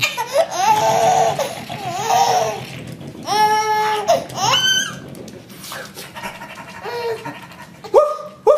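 A baby laughing and giggling in several separate bursts. Near the end a quick run of short, high puppy-like yips begins.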